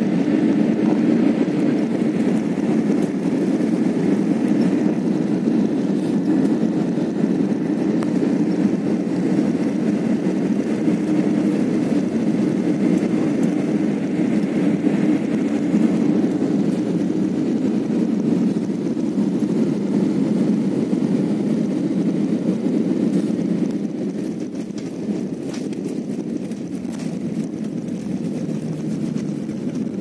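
Airliner cabin noise from a window seat during landing: a steady rush of engines and airflow. It drops a little about three-quarters of the way through as the plane rolls along the runway.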